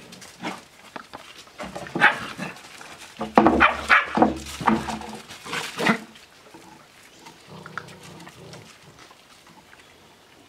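Australian Shepherd puppies and an adult Australian Shepherd playing, with a flurry of short barks and yaps between about two and six seconds in, then quieter play noises.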